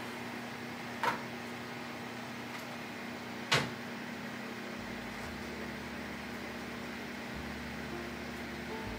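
A baking tray of bread rolls sliding into a preheated combination microwave oven with a light knock about a second in, then the oven door shutting with a sharp clunk at about three and a half seconds, over a steady low hum.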